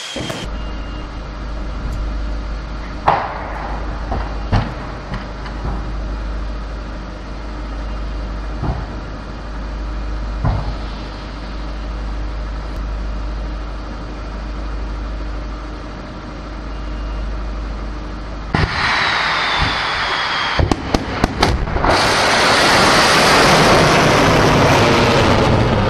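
Steady low rumble with a few faint knocks. About 18 seconds in, a sudden loud hiss with a falling whistle starts, then a quick string of sharp cracks. From about 22 seconds in, a ballistic missile's rocket motor roars loudly as the missile lifts out of its silo.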